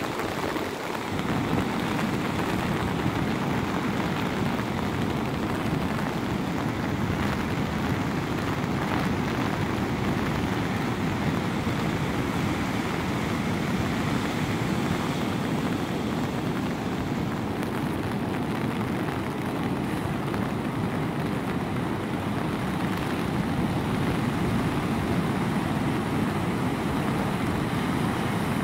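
Heavy ocean surf: large waves breaking and rolling in as whitewash, a steady rushing noise with no letup.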